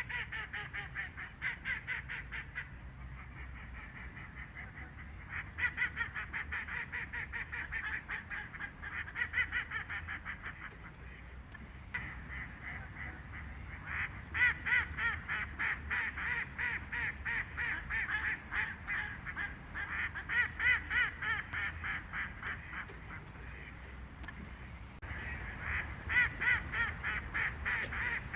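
A group of ducks quacking over and over in fast, high-pitched bouts, with a few short lulls between the bouts.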